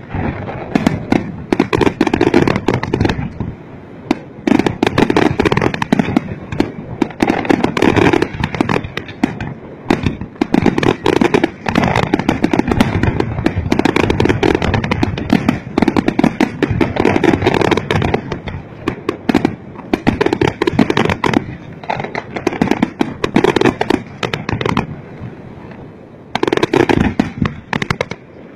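Fireworks display: a dense, continuous barrage of bangs and crackling pops from many shells bursting at once. It eases briefly near the end, then picks up again.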